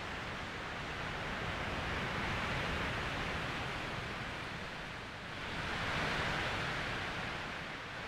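Storm wind rushing through woodland trees, a steady noise that swells in gusts, easing about five seconds in before rising again.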